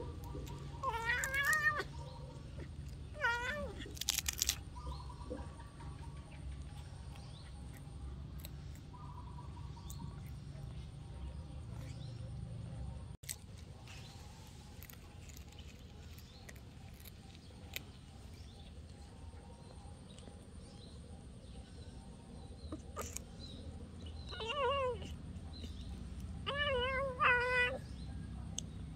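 A cat meowing in short, wavering calls: two in the first few seconds and two more near the end, the last pair the loudest. A brief sharp noise comes about four seconds in.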